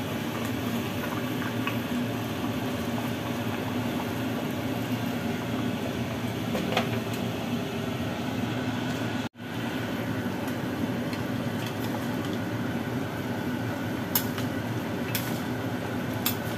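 Soy-based braising liquid with pork trotters bubbling and sizzling in a steel wok on the stove, as a steady hiss over a low hum. The sound drops out for a moment about nine seconds in.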